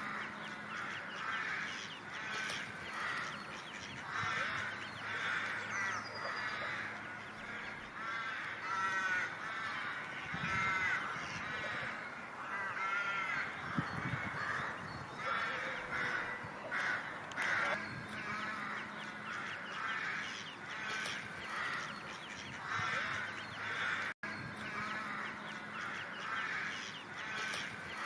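A group of ducks calling, a steady run of short, overlapping quacks.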